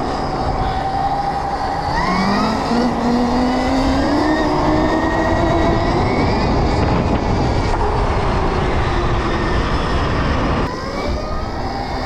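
Stark Varg electric motocross bike's motor whining under throttle, its pitch rising about two seconds in and holding high over rushing wind and tyre noise. The whine fades near the end as the throttle comes off.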